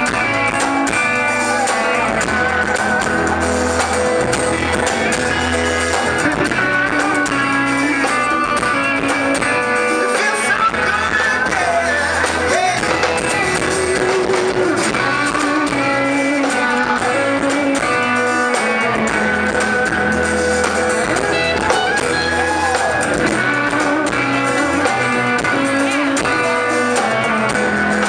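Live acoustic band music: an acoustic guitar strummed steadily, with a hand drum and a male voice singing at times.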